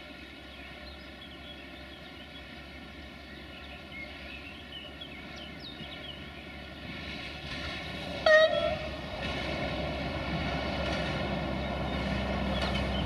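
DB Class 628 diesel multiple unit approaching, its engine and wheels growing steadily louder, with one short horn blast about eight seconds in. Birds chirp faintly in the first half.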